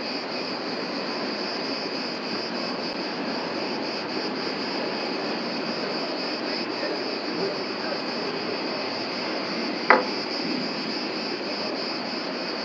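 Crickets chirping in a steady, high, finely pulsing chorus. About ten seconds in there is one short, sharp sound that sweeps downward.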